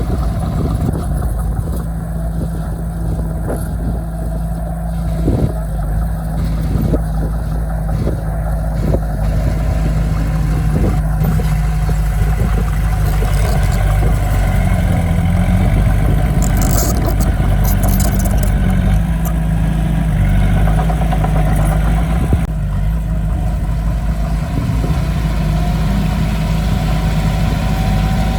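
Heavy earthmoving machinery's diesel engine running steadily, its pitch wavering a little as it works, with a few short knocks in the first half.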